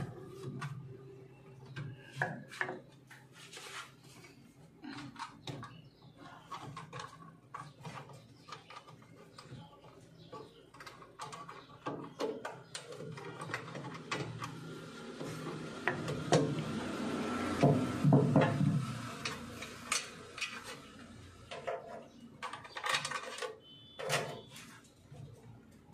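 Scattered clicks, knocks and light clatter of tools and metal parts being handled during work on a generator's controller panel, with a busier, louder stretch about two-thirds of the way through.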